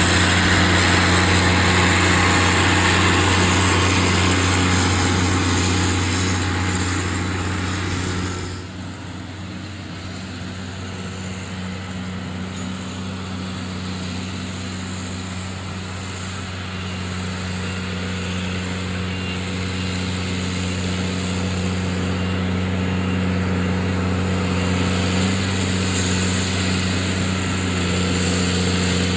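JCB Fastrac 3200 tractor's diesel engine running steadily as it pulls a round baler working oat straw. The sound drops suddenly about eight seconds in, then grows louder as the tractor comes closer.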